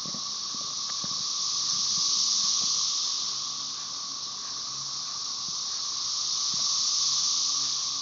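Chorus of Magicicada tredecassini periodical cicadas: a high, hissing buzz from many insects that swells and fades in waves, rising twice. Underneath runs a steady, lower-pitched drone from Magicicada tredecim.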